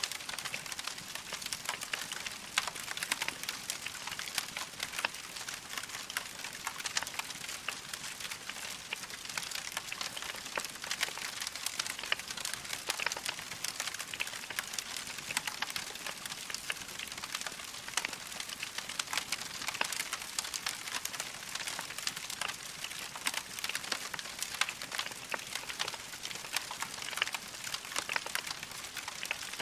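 Wood fire crackling in a fireplace: a dense, continuous run of small pops and snaps over a steady hiss.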